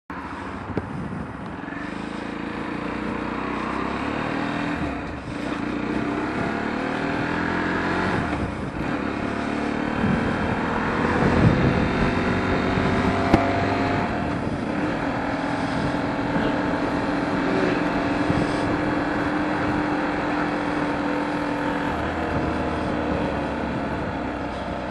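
Sinnis Terrain T125 125cc motorcycle engine running under way, its pitch rising and falling with the throttle.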